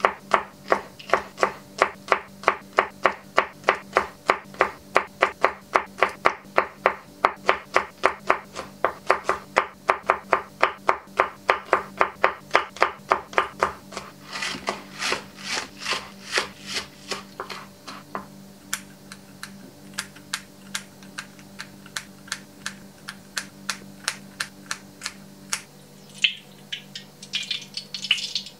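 Kitchen knife slicing green beans on a wooden cutting board: quick, even chops about three a second, growing fainter in the second half.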